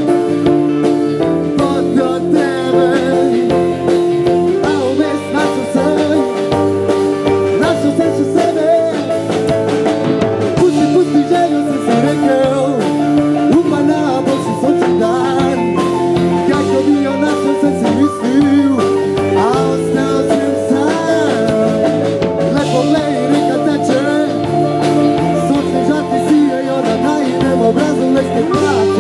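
A band playing a song with guitar and drums, its melody line bending in pitch; no sung words come through.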